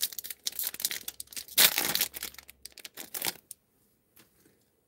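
Foil trading-card pack being torn open and crinkled by hand, a run of crackling rips loudest about one and a half seconds in, stopping at about three and a half seconds.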